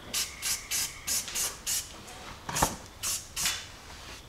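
Aerosol spray-paint can hissing in about nine short, quick bursts, with a single knock about two and a half seconds in.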